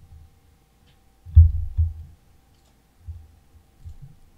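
A few low, dull thumps, the loudest about a second and a half in, with faint computer mouse clicks and a faint steady high hum underneath.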